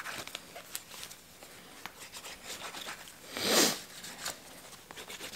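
Wooden craft dowel rubbed back and forth along the edge of a leather knife sheath, burnishing the beeswaxed edge: faint, scratchy rubbing, with one louder whoosh about three and a half seconds in.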